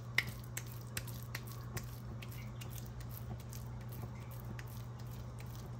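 Wet hands working minced-beef kofta mixture into stuffed balls: soft squishing with small, irregular clicks and smacks.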